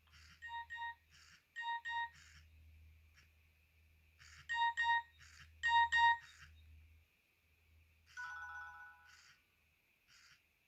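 Nokia N70 ringtone playing from the phone's loudspeaker: quick pairs of electronic beeps in short groups separated by pauses, then a longer chord about eight seconds in.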